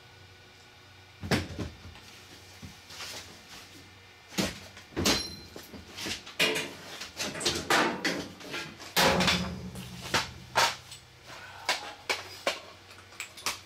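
Knocks, clunks and rattles of a work light and its stand being handled and moved into place: a dozen or so irregular sharp strikes, thickest and loudest about nine to eleven seconds in.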